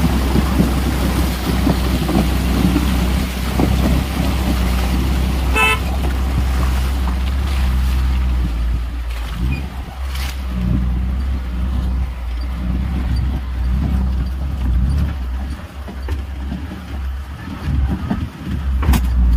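Maruti Gypsy 4x4 engine running steadily as the vehicle wades through a shallow stream, water splashing against the front wheel, then drives on over a stony dry riverbed. A car horn toots briefly about six seconds in.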